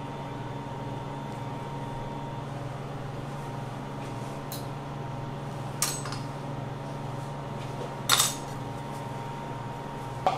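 Steady kitchen machine hum with a faint high tone, broken by a few short, sharp clinks of kitchen utensils, the loudest about eight seconds in and another near the end.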